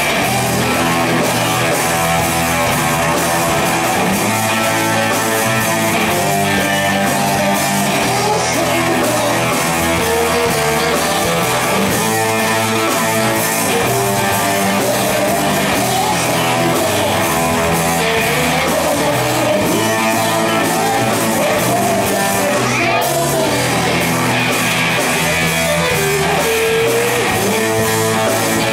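Live rock band playing loud and steady, with electric and acoustic guitars and drums, and a male singer's voice over them.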